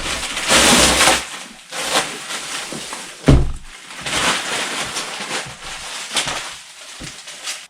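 Parcel packaging being wrestled and torn open by hand: irregular bursts of ripping and rustling, with a heavy thump a little over three seconds in and a few smaller knocks near the end.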